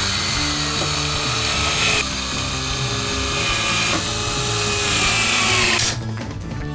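Cordless drill driving screws into a 3D-printed plastic housing, running with brief breaks about two and four seconds in and stopping about six seconds in. Background music plays underneath.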